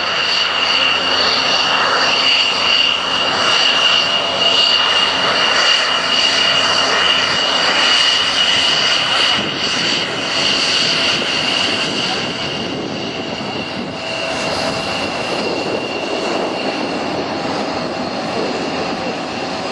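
F-16 fighter jet's engine running with a steady high whine over a roar as the jet rolls along the runway, easing off slightly about two-thirds of the way in.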